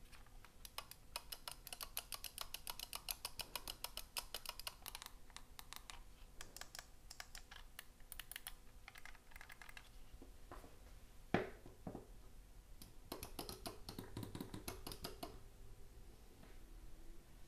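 Buttons of a Razer Basilisk V3 gaming mouse clicked in three rapid runs, with one louder knock about eleven seconds in.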